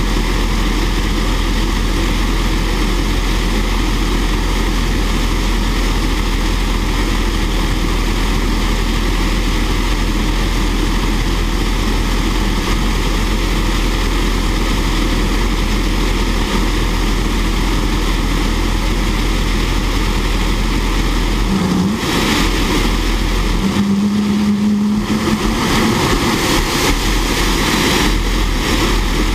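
Fairchild J44 turbojet engine running steadily on a test stand, a loud, even jet noise. A short low hum breaks in twice about three-quarters of the way through.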